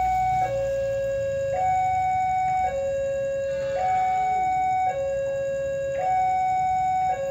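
Railway level crossing warning alarm sounding a two-tone electronic signal, a lower and a higher tone alternating about every second, warning that a train is approaching.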